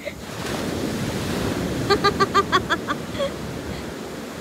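Surf washing onto a sandy beach, with wind buffeting the microphone. About two seconds in comes a quick run of six or seven short pitched notes.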